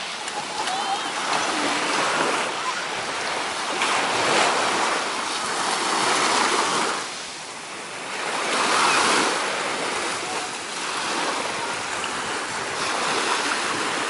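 Small waves breaking and washing up a sandy beach, a hiss of surf that swells and fades in surges every couple of seconds.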